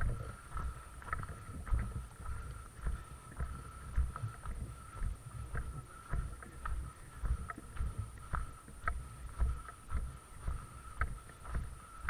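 Footsteps at a steady walking pace, about two soft thuds a second, with light clicks and rustles from the walker's gear.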